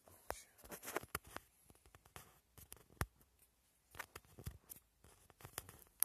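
Faint handling noise: scattered clicks and short rustles, the sound of the recording device being handled and rubbed against.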